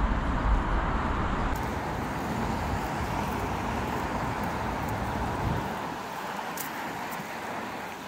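Wind on a camera microphone over steady city traffic hiss, with a gusty low rumble that dies away about two-thirds of the way through. About a second and a half in, the audio switches from a GoPro Hero 10 with wind noise reduction on auto to a Pixel 4a 5G phone with no wind noise reduction.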